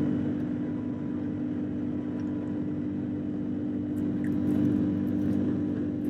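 Aircraft engines heard inside the cabin during the climb just after takeoff: a steady hum with hiss.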